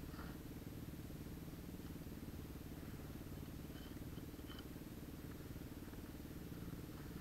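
Faint, steady low rumble of a dirt bike engine idling, with a few light ticks near the middle.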